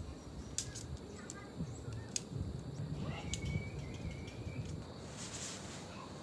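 Tent being put up: sharp clicks of tent pole sections and fittings, tent fabric rustling, and a thin drawn-out squeak about three seconds in, as a pole slides into place.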